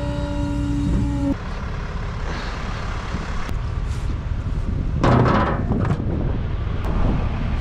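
Tow truck's engine running with a steady low rumble; a steady whine over it stops about a second in, and a short, loud burst of noise comes about five seconds in.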